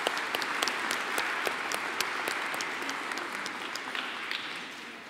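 Audience applauding after a poem reading, many hands clapping at once, the applause dying away near the end.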